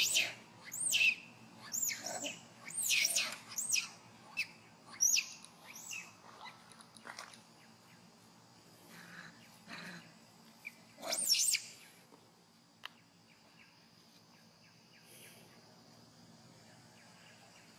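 Long-tailed macaque screaming: a series of shrill, high squeals that each rise and fall in pitch, coming close together through the first six seconds, with a last cluster about eleven seconds in.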